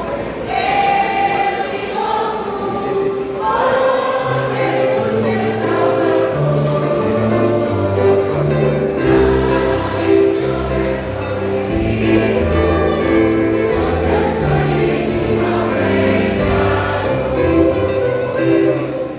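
A vocal group singing a gospel hymn in held, choral harmony with instrumental accompaniment; a bass line comes in about four seconds in.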